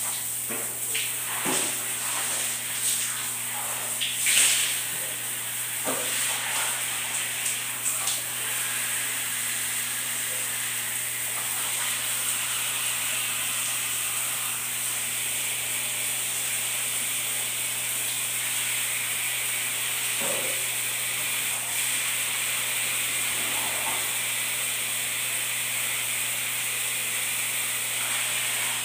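Shower water spraying in a steady hiss onto a person and the tiled floor, with a few short splashes and knocks in the first eight seconds.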